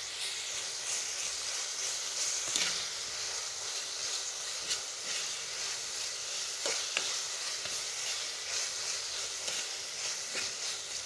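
Onions and ginger-garlic paste sizzling in hot oil in a pressure cooker, fried until the paste loses its raw smell. The hiss is steady, with scattered scrapes and clicks as a perforated metal spatula stirs against the pot.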